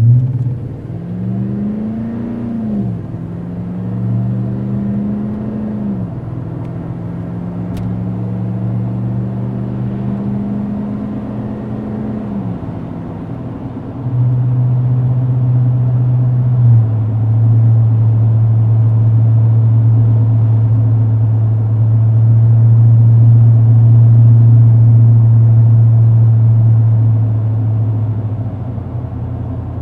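Car engine and exhaust through a performance muffler: revs climb and drop twice in the first few seconds, hold, then fall again. About fourteen seconds in it turns louder into a steady low drone at cruise.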